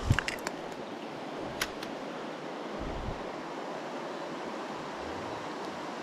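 Steady rushing hiss of a flowing river, with wind on the microphone. A few light clicks come near the start and again about one and a half seconds in as the spinning rod and line are handled.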